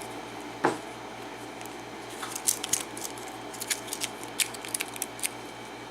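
Small metallic clicks and scrapes of a key being worked into a 6-pin Corbin pin-tumbler lock, scattered irregularly and busiest in the middle. The key is resisting going back in.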